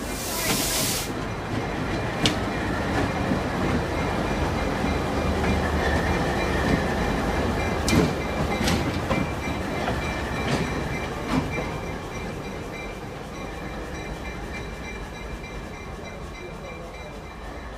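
Alco C425 diesel locomotive running alone past at low speed: its engine rumbling, its wheels clicking over rail joints several times, then fading as it moves away. A short hiss sounds near the start.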